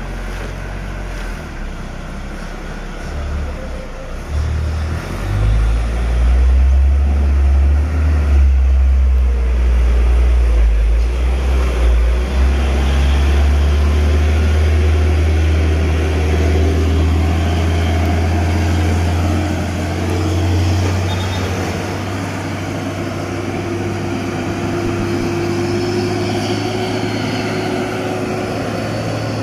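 Hino 500 truck's diesel engine running with a deep, steady rumble as the truck moves slowly past at close range, getting louder about five seconds in.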